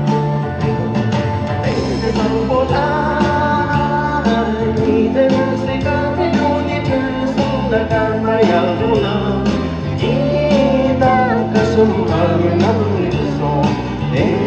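A singer performing a Tibetan pop song over an instrumental backing with bass and a steady beat.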